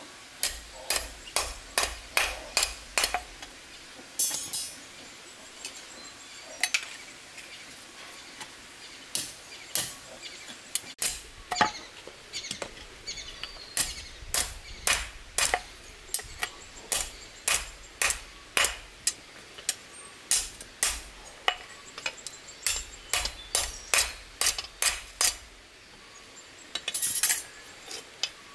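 A hammer striking a steel reinforcing bar laid across a stone, with sharp metallic clinks in quick runs of about two to three blows a second and short breaks between runs. The bent rod is being hammered straight. A couple of short scrapes fall between runs.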